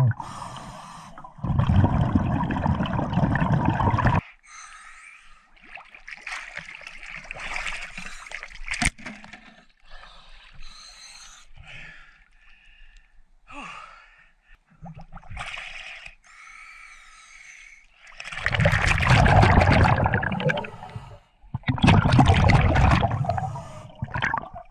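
Scuba diver breathing through a regulator underwater: long bursts of bubbling exhalation, one early and two near the end, with quieter gurgling and water sloshing between them.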